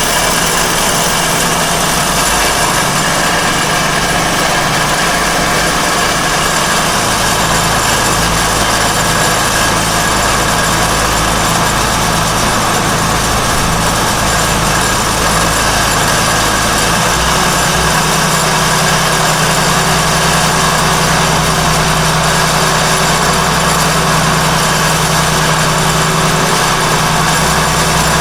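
Yacht's diesel engines running steadily, a loud continuous drone whose low hum shifts in pitch a couple of times.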